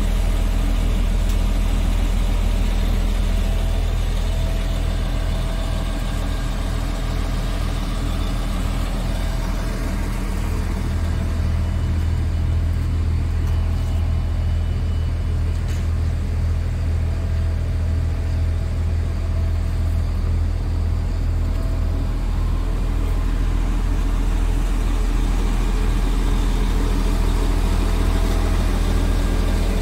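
Scania S tractor unit's Euro 6 diesel engine idling steadily, a deep even hum that holds the same pitch throughout.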